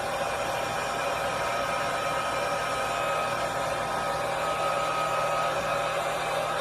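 Hair dryer blowing steadily, a constant rushing of air with a faint whine from its motor.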